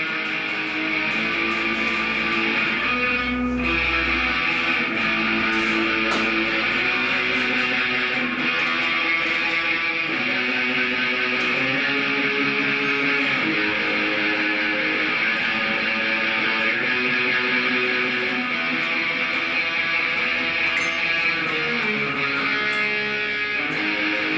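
Electric guitar played through a distortion effect app, with a run of held, distorted notes changing about once a second.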